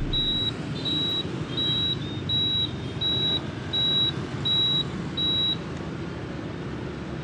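Steady road and engine noise of a motorbike riding through city traffic. Over it, a high electronic beep repeats evenly about once every 0.7 seconds, eight times, then stops about five and a half seconds in.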